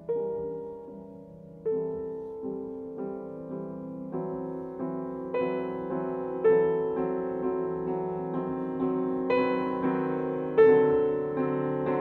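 Background piano music: a slow, gentle piece of notes struck one after another, each ringing and dying away, growing fuller and louder toward the end.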